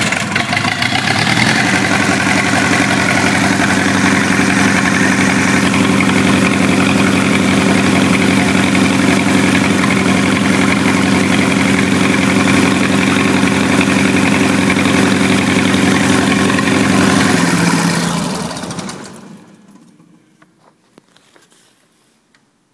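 Diesel engine started on a thermostart cold-start aid, running steadily, then shut off about 18 seconds in and running down to a stop.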